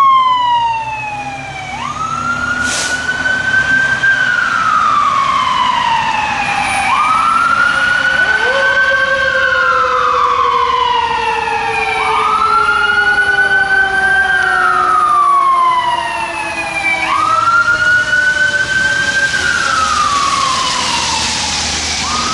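Whelen electronic siren on a 2014 Pierce Arrow XT fire engine sounding in wail mode while the engine is responding to a call. The tone climbs and falls in slow sweeps, about one every five seconds. Midway through, a second, lower tone slides slowly downward beneath it.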